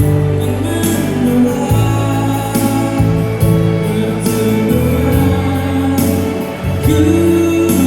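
A song sung over a backing track, with long held, slightly bending vocal notes above a bass line.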